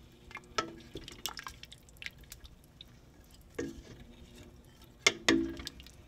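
Wooden spoon stirring soup in a metal pot: liquid sloshing and dripping, with scattered knocks of the spoon against the pot, the loudest a pair about five seconds in.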